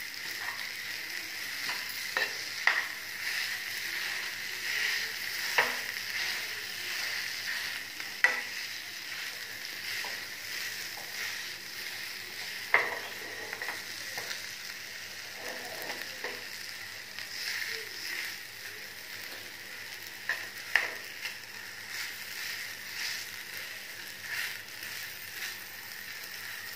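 Spiced mashed-potato kachori filling frying with a steady sizzle in a nonstick pan over a gas flame, while a metal spoon stirs and mashes it, scraping the pan with scattered sharp taps. The filling is being cooked through and mixed.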